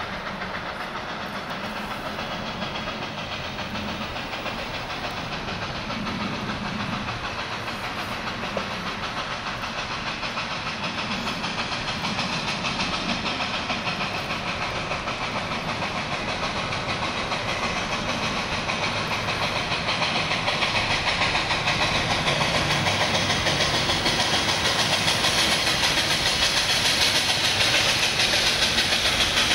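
Steam locomotive Robert Dollar No. 3, a 2-6-2 tank engine, working toward the listener: rapid exhaust chuffing with steam hiss, growing steadily louder as it approaches.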